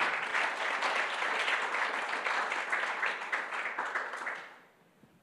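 Audience applauding: many hands clapping. The applause fades out about four and a half seconds in.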